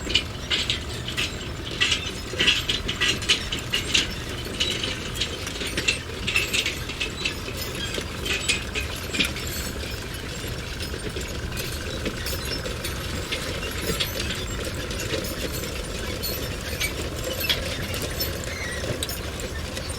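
Metal construction work: irregular clanks and clinks of metal on metal over a steady low rumble. The clanking is busiest in the first half and thins out in the second.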